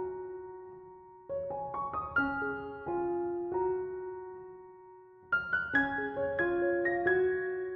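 Gentle background piano music: phrases of single notes, each ending on a held note that dies away before the next phrase starts, and notes coming faster from about five seconds in.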